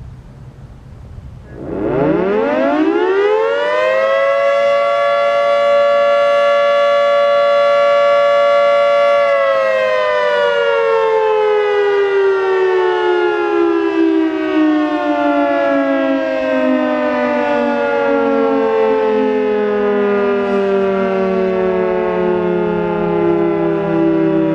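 Federal Signal 3T22A three-tone electromechanical siren sounding its daily noon whistle: it winds up quickly to a steady chord about two seconds in, holds it for about eight seconds, then cuts off and coasts down slowly in pitch as the rotor spins down.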